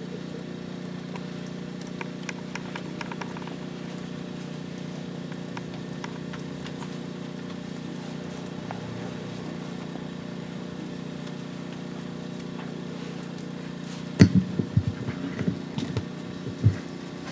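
A steady low hum, with a burst of knocks and thumps from a microphone being handled about fourteen seconds in, and one more thump near the end.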